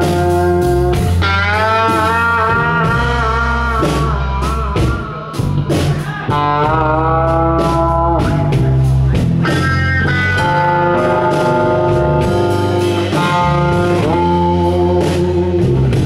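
1959 Fender Telecaster electric guitar playing a slow blues solo of sustained, bent notes, over electric bass and drums. The band drops back briefly about five seconds in.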